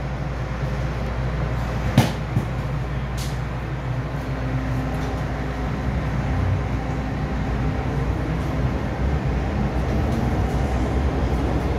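MTR M-Train electric multiple unit running through a tunnel: a steady rumble of wheels on rail, with one sharp knock about two seconds in and a faint hum joining in around halfway.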